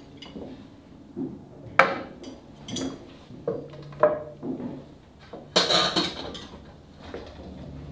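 Plates and cutlery clinking and clattering as a dinner table is set by hand: several separate clinks, with the loudest, longest clatter a little past the middle.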